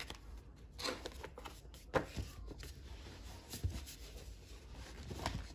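Paper workbooks being picked up and handled: rustling pages with a few light knocks, the sharpest about two seconds in.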